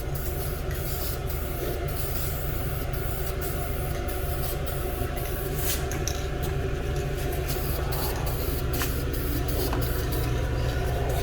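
Steady mechanical hum with an even hiss, a running machine, with a few faint clicks.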